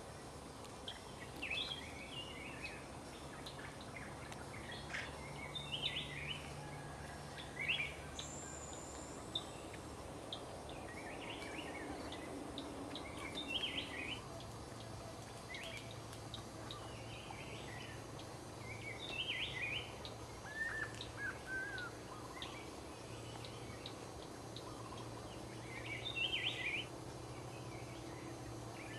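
Several small birds calling in the forest: short chirps every second or two, with a few brief falling calls, over a low steady hum.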